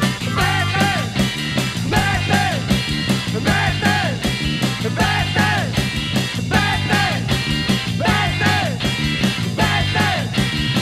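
Rock band playing an instrumental passage: a steady drum beat and bass under a lead instrument repeating short phrases that bend up and down in pitch.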